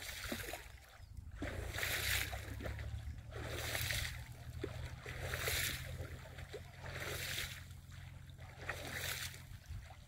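Small wind-driven waves lapping in over the shallows at the water's edge, each a splashing wash that swells and fades about every two seconds, with small splashes and gurgles between. A steady low rumble runs underneath.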